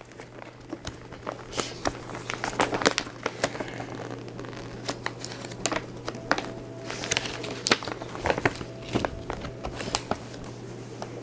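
Paper wrapping made of printed book pages being handled and pulled open by hand: irregular crinkling and crackling rustles, over a low steady hum.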